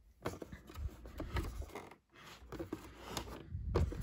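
Hands working at the plastic brew-unit casing inside a Jura E8 coffee machine: an irregular string of small plastic clicks, taps and scrapes, with a few dull knocks.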